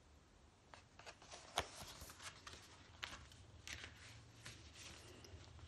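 Faint rustling and soft clicks of a picture book's paper pages being handled and turned, with one sharper tick about a second and a half in.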